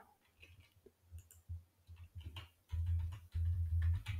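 Computer keyboard keys clicking irregularly as someone types, with a low rumble coming in a little over halfway through.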